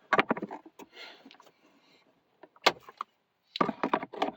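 Plastic HVAC blend door and its barbed retaining clips clicking and knocking in the heater box as the door is wiggled to free it, with one sharp snap about two and a half seconds in and another flurry of clicks near the end.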